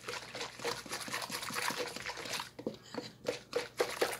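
Wire whisk beating a thin chickpea-flour batter in a stainless steel bowl: quick, wet strokes, the wires ticking against the metal.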